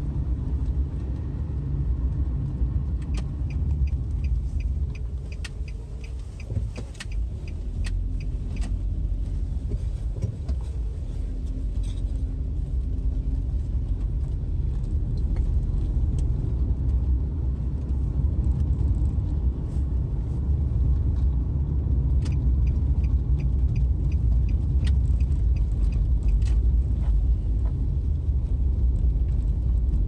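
Car driving slowly, heard from inside the cabin: a steady low rumble of engine and road noise, with scattered light clicks.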